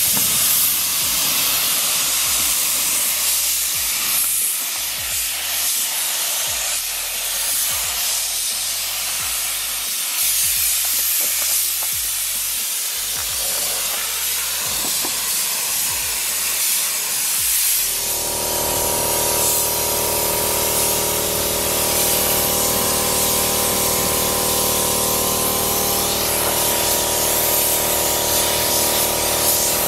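Compressed-air spray gun with a bottom cup hissing steadily as it sprays the first coat of primer. About two-thirds of the way through, a steady humming drone with several tones joins the hiss.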